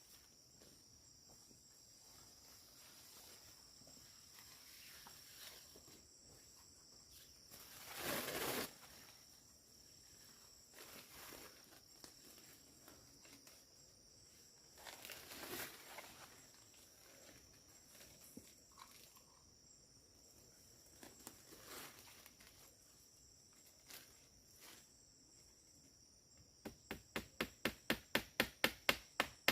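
Steady high-pitched drone of forest insects, with a couple of brief rustling noises. Near the end a fast run of sharp knocking strikes begins, about five a second, getting louder.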